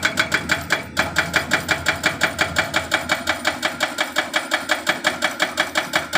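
LiuGong LGB140 hydraulic breaker on a CLG922E excavator hammering at a steady rate of about six blows a second, with a brief break about a second in.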